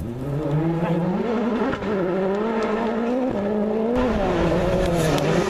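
Rally car engine revving hard, its pitch climbing and falling repeatedly with sudden steps as it changes gear.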